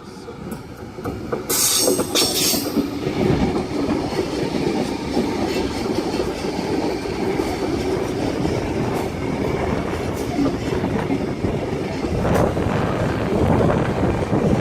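Sydney Trains Tangara electric train running slowly along the platform, with steady wheel-on-rail rumble and clacking over rail joints. A short hiss about two seconds in.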